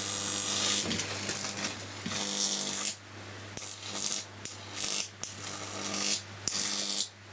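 High-voltage arc from a 10 kV neon sign transformer crackling and hissing across a mobile phone's circuit board, over the transformer's steady mains hum. The arc cuts out for brief moments several times and picks up again.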